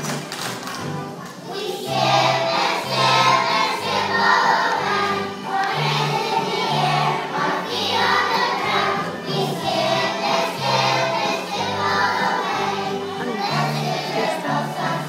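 Children's choir singing over an instrumental accompaniment with a low bass line. The voices come in about two seconds in, after a short percussive lead-in.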